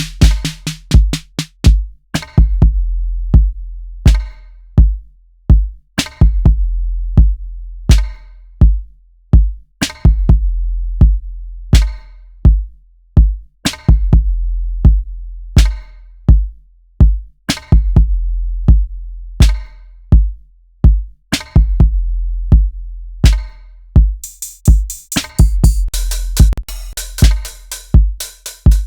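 Hip-hop drum pattern from Native Instruments Maschine's drum synths looping: deep kicks with long low tails and sharp snare-type hits in a steady rhythm. A fast run of bright hi-hats joins near the end.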